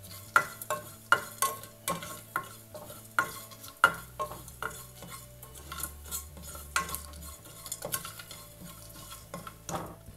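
Whole spices being stirred as they roast in a little oil in a pan: repeated scraping clicks of the utensil against the pan, about two or three a second, over a faint sizzle. The spices are cumin and fennel seeds with cinnamon, cloves, cardamom and dried chillies.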